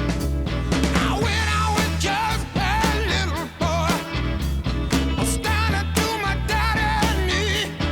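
A song plays with a singing voice, sung with vibrato, over a steady bass line and a regular drum beat.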